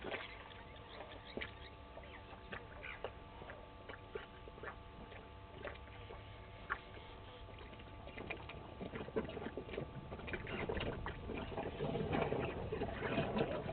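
Scattered light crackles and scuffs of an African elephant bull moving on dry ground close to the microphone, growing louder in the second half as it steps nearer, over a faint steady hum.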